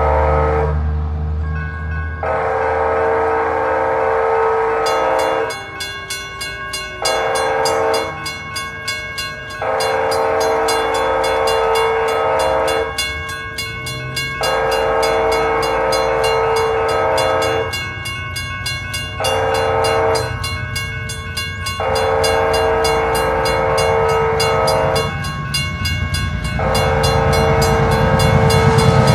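BNSF freight locomotive's air horn blowing the long, long, short, long grade-crossing signal again and again as the train approaches at speed. A crossing warning bell rings from about five seconds in, and the rumble of the train rises near the end as it reaches the crossing.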